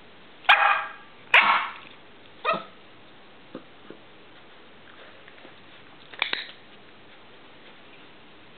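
A dog barking: two loud barks in quick succession about half a second in, a shorter bark about a second later, and one more a few seconds after that.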